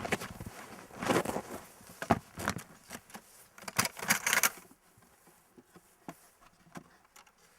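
Footsteps crunching and scraping in snow, a few uneven steps that stop after about five seconds.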